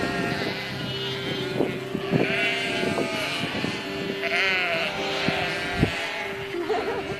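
Livestock bleating: several separate wavering calls, with a few sharp knocks between them.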